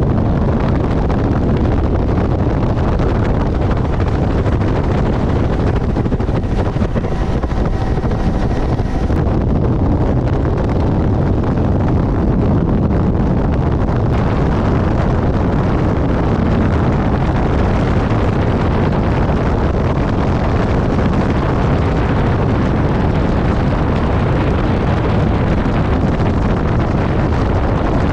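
Helicopter in flight: a loud, steady rumble of rotor and engine noise, with wind buffeting the microphone.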